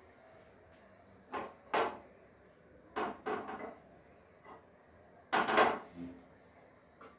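Kitchenware being handled on a stainless steel gas stove: a few short knocks and clatters, the loudest a close group near the end.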